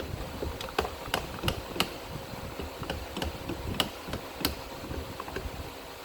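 Hand-turned bead forming tool being worked around a metal tube: irregular sharp metallic clicks and knocks over a low rumble as the tool is turned and the bench shakes.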